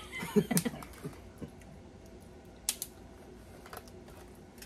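Scattered light clicks and taps of food and tableware being handled at a table, with a brief voice murmur at the start.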